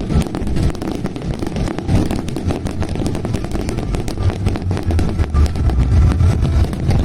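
Fireworks bursting: a dense, continuous crackling of many small pops over deep, rumbling booms.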